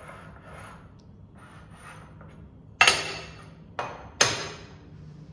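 Three sharp strikes, the first near the middle and two more close together about a second later, each with a short ringing fade.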